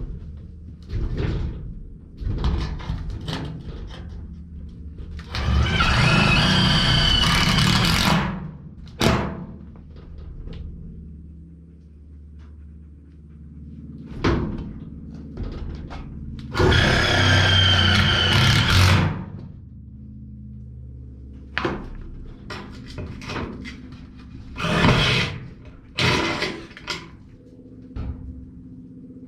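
Power drill running in two bursts of about three seconds each, drilling holes through the shed's steel wall and fixing plate, with short knocks and clatter of tool handling between them.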